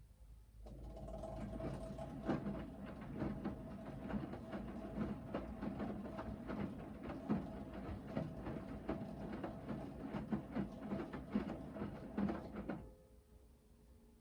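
Hoover VHD 9163 ZI front-loading washing machine drum turning in the main wash: the motor runs with a faint whine while clothes and water tumble and slosh in irregular thuds. It starts about a second in and stops suddenly near the end, the usual pause between wash tumbles.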